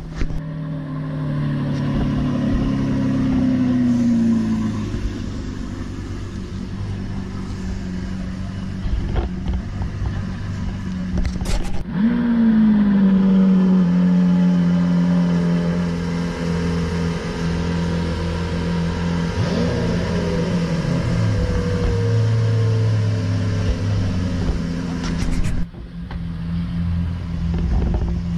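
Lamborghini supercar engines idling at a fast idle. The pitch sinks slowly over the first few seconds. About twelve seconds in, an engine flares up sharply and glides back down to a steady idle. A few smaller rises and falls in pitch follow later.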